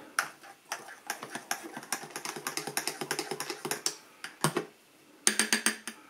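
Metal spoon stirring coffee in a ceramic mug, clinking against the inside at about four or five small clicks a second, then a quick run of taps near the end as the spoon is lifted out.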